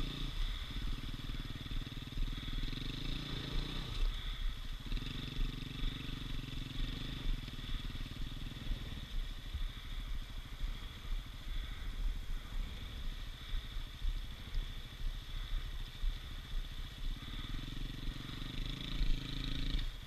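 Dirt bike engine idling, a low steady rumble.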